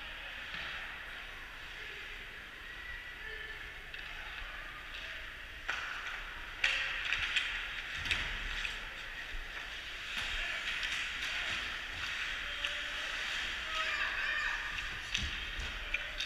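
Ice hockey play in an arena: skates scraping across the ice, with sharp clacks of sticks and puck that come thicker from about six seconds in, and faint distant voices.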